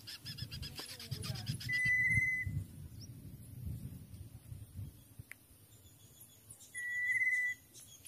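Bird calls: a quick rattling series of pitched notes, then two clear, slightly wavering whistled notes, each just under a second long and several seconds apart, over a low rustling rumble.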